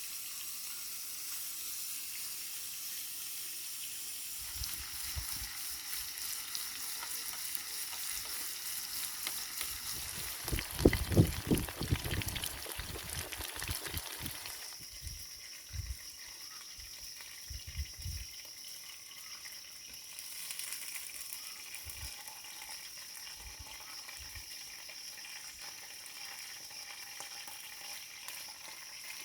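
Food sizzling and frying in a pan, with knocks and stirring from a utensil about ten to fourteen seconds in; the sizzle is quieter after that.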